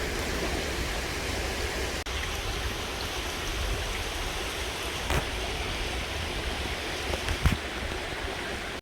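A river flowing, a steady rush of water, with two short knocks, one about five seconds in and a louder one near the end.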